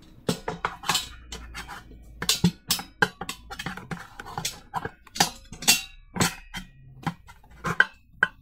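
Irregular run of hard plastic clicks and knocks from an air fryer's basket and handle being pushed and wiggled, stiff to seat in place; the owner blames a loose screw for the tight fit.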